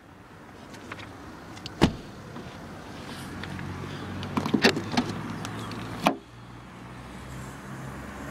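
A BMW 116d hatchback's door shuts with one loud thud about two seconds in. Later, a quick run of latch clicks and a clunk as the tailgate is released and lifted open, over a low steady hum.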